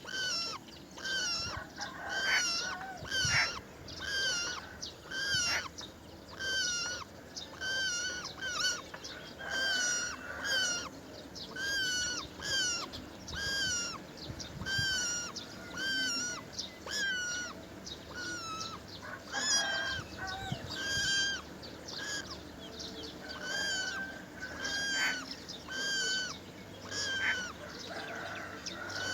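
Roller calling over and over at the nest: a short call that bends in pitch, repeated about once a second, sometimes doubled.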